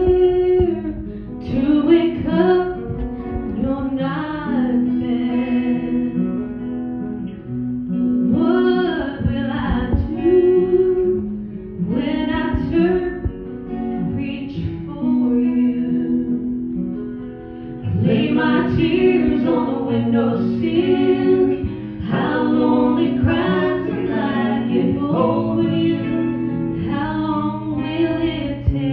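A woman singing a slow song into a microphone, backed by a live band with guitar.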